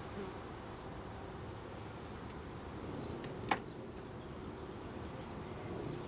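Steady hum of many honeybees swarming over an open hive and a frame lifted from it. The colony is one the beekeeper says is acting queenless and buzzes differently from a normal hive. About halfway through there is a single sharp tap.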